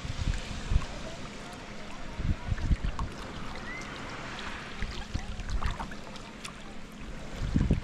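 A sea kayak being paddled with a carbon Greenland paddle: water splashing and trickling around the blades and hull, with a few low thumps of wind on the microphone.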